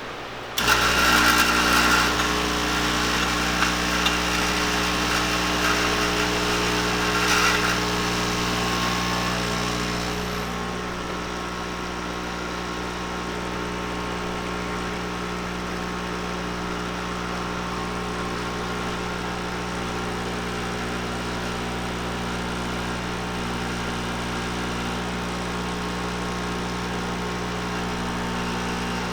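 Lelit espresso machine's newly replaced pump pulling a shot. It starts suddenly about half a second in with a loud buzz and hiss, then settles after about ten seconds into a steady hum.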